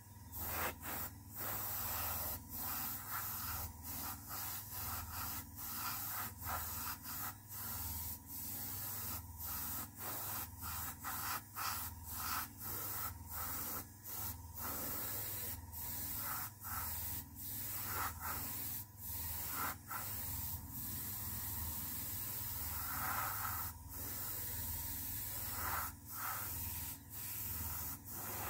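Airbrush spraying paint onto a plastic model: a steady air hiss that cuts out briefly more than once a second as the spraying stops and starts.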